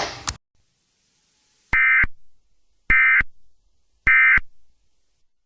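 Emergency Alert System End-of-Message signal from a DASDEC encoder. Three short, identical bursts of buzzy warbling data tone about a second apart mark the end of the alert.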